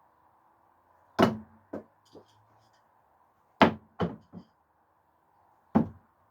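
Thrown screwdrivers striking a target: three loud sharp knocks about two seconds apart, the first two each followed by one or two smaller knocks.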